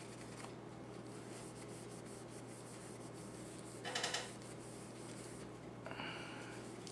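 Cloth rubbing on a pistol barrel during hand polishing, in two short strokes about four and six seconds in, over a steady low hum.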